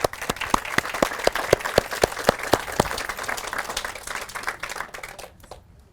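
Audience applauding, with one person clapping close by at a steady four or so claps a second for the first three seconds. The applause dies away about five seconds in.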